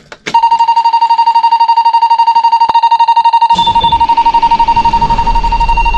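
Dashboard warning buzzer in an American Eagle diesel-pusher motorhome sounding a fast, steady pulsing beep as the ignition comes on. About three and a half seconds in, the diesel engine cranks and fires, and its low idle rumble carries on under the buzzer.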